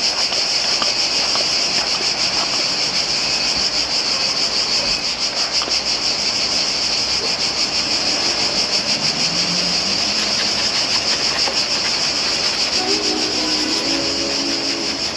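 Small detailing brush scrubbing a plastic interior panel: a steady hiss of fast rubbing strokes. Music with held notes comes in near the end.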